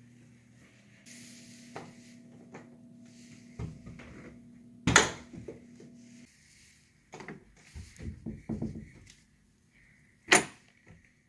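Interior doors being pushed and worked open with bare feet: knocks, clunks and rattles of the wooden doors and their hardware. There is one sharp bang about five seconds in, a run of quick knocks and rattles from the bifold closet door a couple of seconds later, and another sharp bang near the end as a doorknob is turned with the toes.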